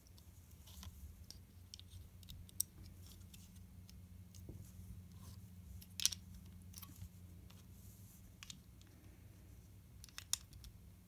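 LEGO bricks being handled and pressed together by hand: scattered faint plastic clicks and rubbing. The sharpest snaps come a few seconds in, about halfway, and near the end, over a faint steady low hum.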